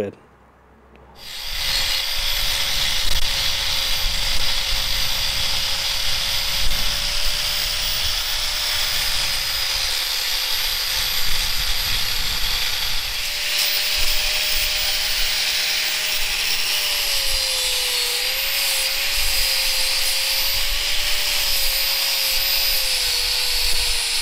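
Angle grinder grinding down rough weld build-up on the cast-steel teeth of an excavator track sprocket, starting about a second in: a steady motor whine over the scraping of the disc on the metal, the pitch wavering and sagging as the disc is pressed in. Partway through, the rough grinding disc gives way to a flap disc smoothing the teeth.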